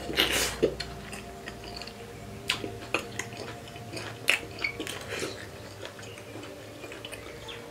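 A person eating pork curry with rice close to the microphone: scattered short wet clicks and smacks of chewing, with a louder noisy burst just after the start. A faint steady hum runs behind.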